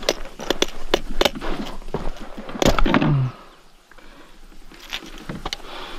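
A run of sharp knocks and clicks from gear being handled on a plastic kayak, with a short creaking scrape about three seconds in that slides down in pitch and cuts off, followed by a few lighter clicks.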